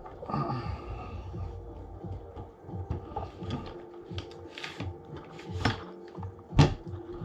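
Handling noise from an airsoft rifle being taken apart on a bench mat: irregular clicks, knocks and rustling of its parts, with a sharp knock near the end, over a steady hum.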